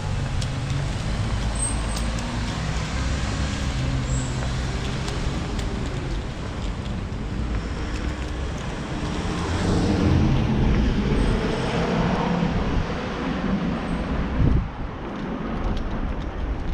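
Road traffic: car engines and tyres passing, swelling about two-thirds of the way through as a vehicle goes by, with one short knock near the end.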